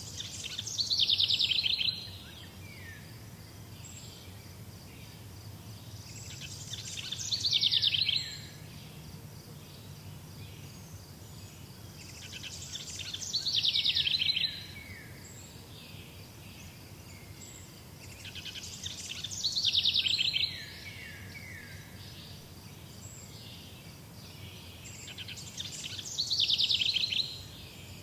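A songbird repeating the same short song five times, about every six seconds: each song is a quick run of trilled notes, about two seconds long, that grows louder and ends abruptly. A faint low rumble runs underneath.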